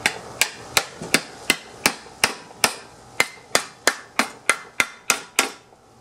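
About sixteen sharp, even hammer strikes, about three a second, on a screwdriver wedged into the seam of a Briggs & Stratton lawn mower engine, driving it in to split the sump cover from the crankcase. The strikes stop shortly before the end.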